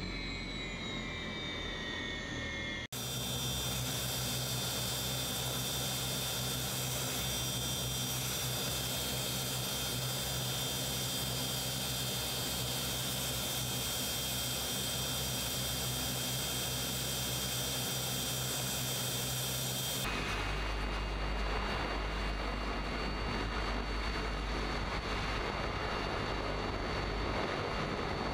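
AgustaWestland AW139 helicopter's twin turboshaft engines and rotor running, heard from the cockpit: a steady high turbine whine over a low rotor hum, its high tones sliding down in pitch at first. About two-thirds through, the sound changes to a deeper rumble with wind noise and a fainter whine.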